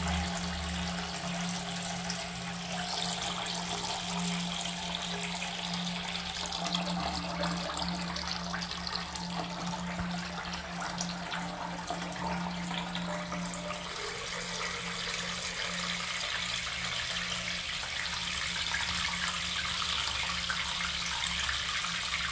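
Steady rushing noise with a low steady hum underneath.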